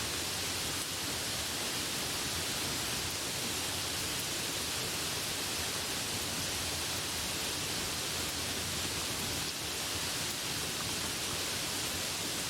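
Steady rain falling, an even hiss that holds at one level with no swells or breaks.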